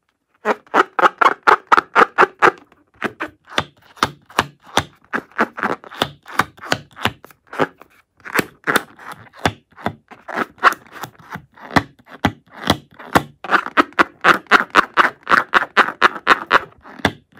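Hands rubbing and squeezing a rubber balloon: quick runs of squeaks, about six a second, in stretches broken by short pauses.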